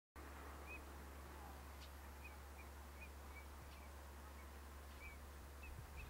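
Faint short high bird calls, about ten single chirps spaced irregularly, over a steady low hum.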